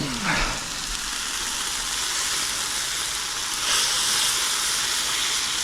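Sofrito sizzling in a stainless steel pan: a steady frying hiss that grows louder about three and a half seconds in.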